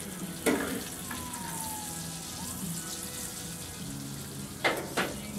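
Thin chicken breasts sizzling on a gas grill, with sharp metal clacks of a spatula on the grate about half a second in and twice near the end. Faint country music plays underneath.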